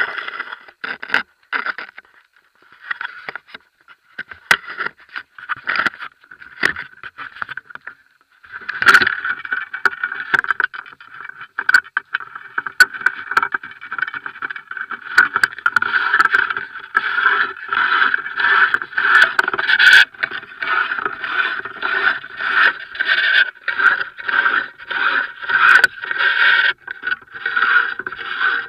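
Handling noise of a 9 m telescopic carbon fishing-rod pole carrying the camera as it is extended and raised: repeated scraping strokes with clicks, sparse at first, then about two a second from roughly a third of the way in.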